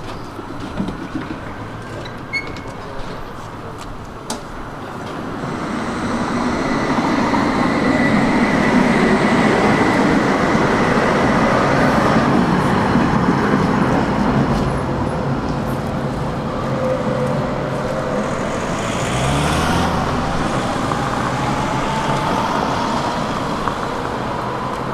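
A Tatra T3 tram pulling away from a stop and passing close, its electric traction motors giving a steady whine over the rumble of steel wheels on the rails. Later, street traffic with a slowly rising whine.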